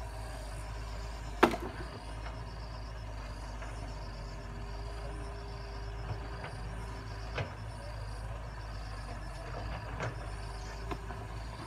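Wheeled excavator's diesel engine running steadily while it digs, with one sharp clank about a second and a half in and a few lighter knocks later on.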